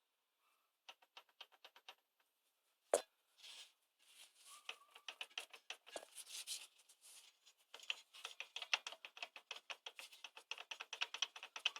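Rapid clicking from a car's drive shaft (half-shaft), the knock of a worn drive-shaft joint. A short run of clicks, one louder knock about three seconds in, then faster, steadier clicking at roughly eight to ten a second.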